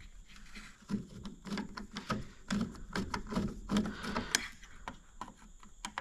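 Scattered, irregular light clicks and knocks of hand-tool work on car door hardware, with the handle's seized mounting bolt snapped inside the door.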